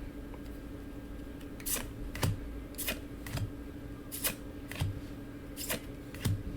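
Weiss Schwarz trading cards being handled and flipped through one at a time: a string of light card snaps and slides at uneven intervals, roughly every half second to second, over a low steady hum.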